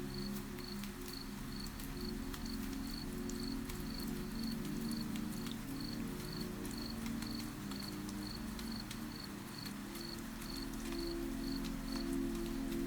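Cricket chirping steadily, about two chirps a second, over a faint patter of rain ticks and a low sustained ambient music drone.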